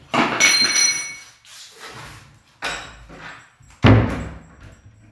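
A wooden door with a newly fitted handle lock being shut. In the first second there is a metallic jangle with ringing tones from the lock hardware and the keys hanging in it, then about four seconds in a heavy thud as the door closes.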